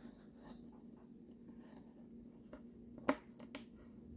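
Quiet handling noises: faint rubbing and light taps, with one sharp click about three seconds in, over a faint steady low hum.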